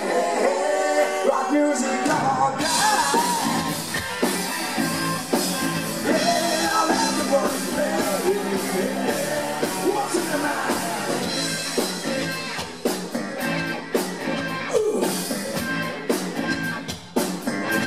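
Live rock band playing with a lead singer, drums and guitars, loud and continuous.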